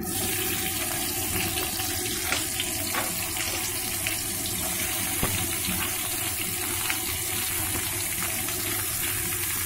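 Cut small onions sizzling in hot refined oil in a frying pan: a steady hiss that starts suddenly as they go into the oil, with scattered small crackles.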